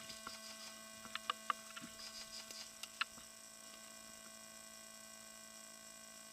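Steady electrical hum with a few faint sharp clicks in the first three seconds.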